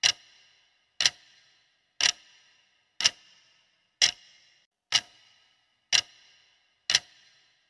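Clock-tick sound effect counting down a quiz timer: a sharp tick once every second, eight in all, each with a brief high ring after it.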